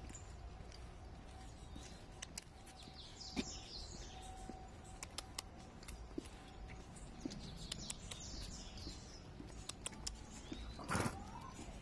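Small birds chirping in repeated short high bursts, with scattered light clicks and taps. One brief louder sound comes near the end.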